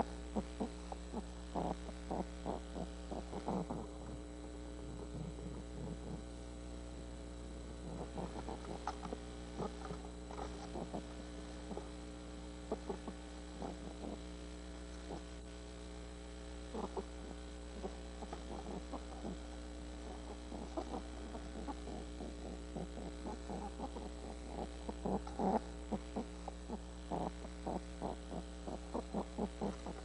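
Steady electrical mains-type hum with many evenly spaced tones. Over it come irregular clusters of short scratching and tapping sounds, strongest near the start and toward the end.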